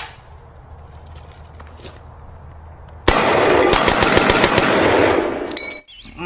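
About three seconds in, a loud burst of rapid automatic machine-gun fire begins, a dense stream of shots lasting nearly three seconds and stopping abruptly. It is a gunfire sound effect laid over the toy-gun footage.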